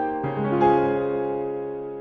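Background piano music: a few notes, then a final chord struck about half a second in that rings on and slowly fades.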